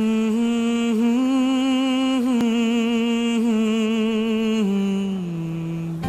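Song intro: a single voice humming a slow, held melody with a gentle vibrato, stepping down in pitch near the end.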